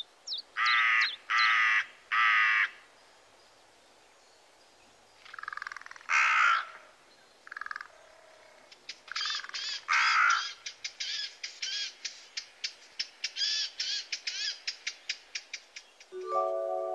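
Harsh, raspy animal calls: three long calls close together at the start, a few more in the middle, then a quick run of short calls, several a second. Music comes in near the end.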